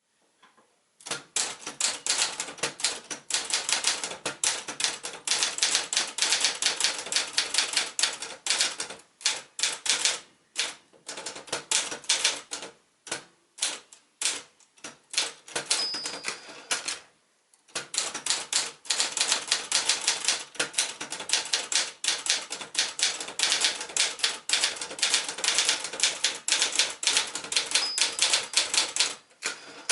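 Manual Adler J2 typewriter being typed on in good working order: fast runs of key strikes, thinning to scattered strokes for a stretch in the middle, then a brief pause before fast typing resumes.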